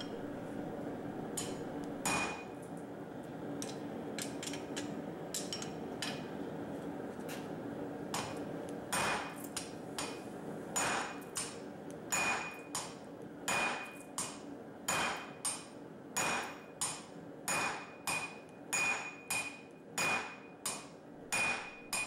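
Hammer blows on a red-hot steel bar held across a hand-forged hardy tool in the anvil, each blow followed by a short metallic ring. A few scattered strikes at first, then from about nine seconds in a steady run of blows, roughly one to two a second.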